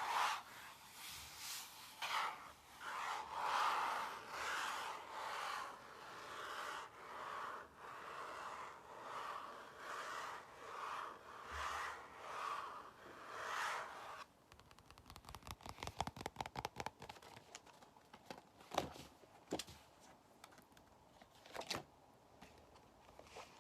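Close-up ASMR trigger sounds: slow rhythmic rubbing and scraping strokes, about one a second, then from about 14 seconds in a sudden change to quick dense crackling clicks and taps, with two sharper clicks near the end.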